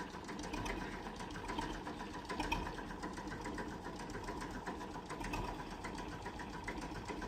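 A small machine clattering steadily: a fast, even run of ticks with a faint steady hum underneath.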